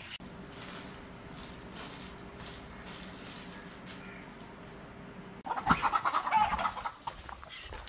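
Chickens clucking, with a loud, busy flurry of clucks and commotion starting about five and a half seconds in and lasting over a second. A faint steady hum runs underneath before it.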